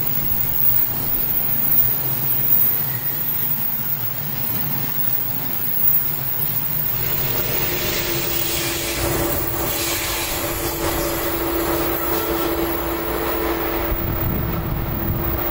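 Freight train of lorries on low-floor wagons rolling past close by, a steady rumble of wheels on rail. About seven seconds in the red ÖBB electric locomotive passes, adding a steady hum of several tones. Wind buffets the microphone.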